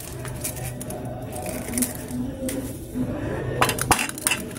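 Chicken eggs being cracked by hand into a stainless steel bowl: a series of sharp taps and clicks of shell against the metal bowl, the loudest cluster near the end, over a steady low hum.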